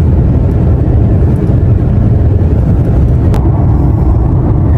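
Steady low road and engine rumble heard inside a car's cabin while it drives along the highway.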